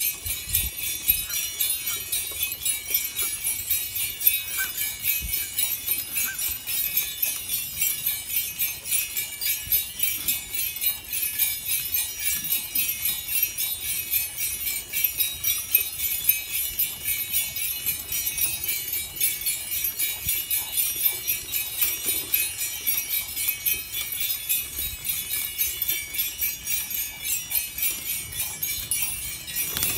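Small bells on a dog's harness jingling continuously in a quick, pulsing rhythm as the dog moves.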